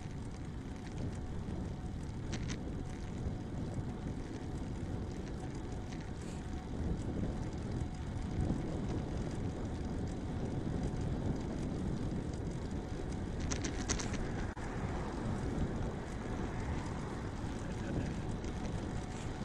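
Wind buffeting the microphone of a bicycle-mounted camera together with tyre and road rumble while riding, the rush growing a little as the bike picks up speed. A couple of brief high ticks cut through, about two seconds in and again near the middle.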